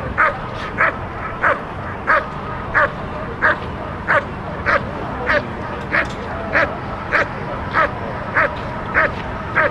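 A German Shepherd barking over and over at an even pace, about three barks every two seconds.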